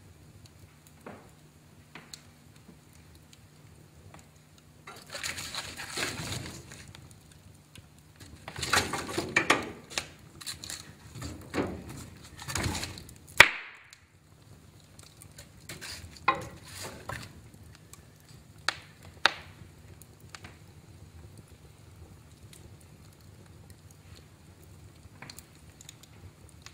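Wood fire burning in a fireplace, crackling and popping, with a run of hissing flare-ups in the middle and one sharp loud pop about halfway through, then sparser crackles.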